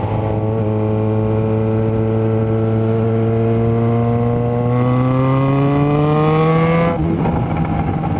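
Yamaha XJ6's four-cylinder engine through a Power GP2 4-into-1 full exhaust while riding: a steady note, then revs climbing smoothly under acceleration for a few seconds. The note drops abruptly about seven seconds in and settles steady again.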